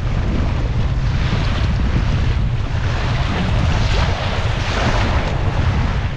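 Wind buffeting the microphone in a steady low rumble, over waves rushing and splashing against the hull of a small sailing dinghy beating upwind into the chop. The splashing swells several times, most strongly about four to five seconds in.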